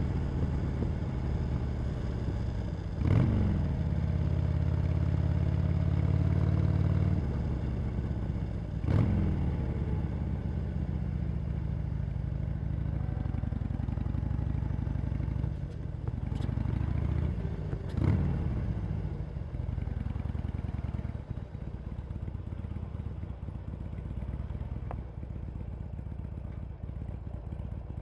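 Harley-Davidson Sportster Iron 883's air-cooled V-twin running through its stock exhaust. It picks up sharply on the throttle three times, each time climbing and then falling back, and settles to a lower, quieter run over the last several seconds.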